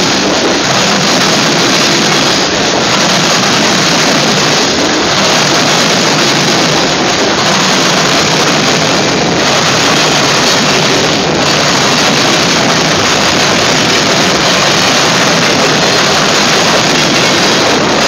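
Freight cars (gondolas, covered hoppers and tank cars) rolling past close by on the rails: a loud, steady rush of wheel and rail noise.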